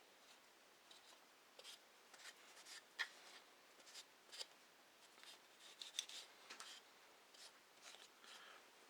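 Faint, scratchy rubbing of a cleaning patch being wiped over a Glock 34's polymer frame in short strokes, drying the magazine well, with two small sharp clicks or taps, about three seconds in and again about six seconds in.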